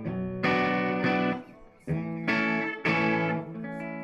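Duesenberg Starplayer TV electric guitar played through the EF86 channel of a Risen Legacy amplifier into a cabinet loaded with Warehouse ET65 and Veteran 30 speakers: a run of strummed chords, the last one left to ring out near the end.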